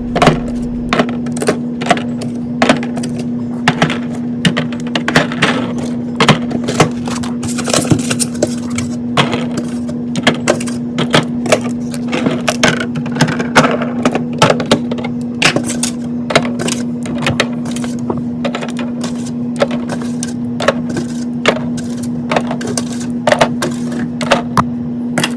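Groceries and plastic fridge-organizer containers being handled and set into a refrigerator: an irregular run of clicks, taps and knocks on hard plastic, over a steady low hum.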